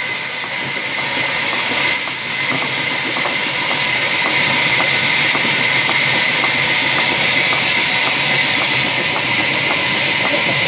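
Sawmill log band saw running and cutting through a log: a loud, steady hissing whine with a light regular ticking, about three ticks a second, growing a little louder a few seconds in.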